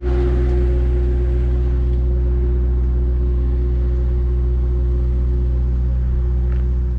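An engine running steadily at idle close by: an even, unchanging low hum.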